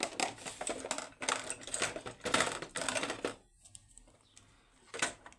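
Rapid clicking and scraping of a Yanai lock's parts being worked apart by hand, for about three and a half seconds, then a single sharp click near the end.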